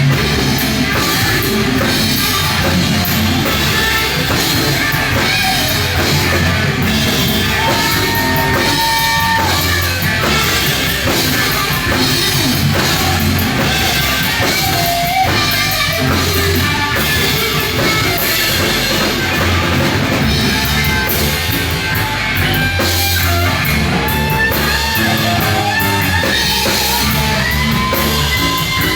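Live rock trio of electric lead guitar, bass guitar and drum kit playing an instrumental passage. The lead guitar holds long notes that bend in pitch over continuous drumming and bass.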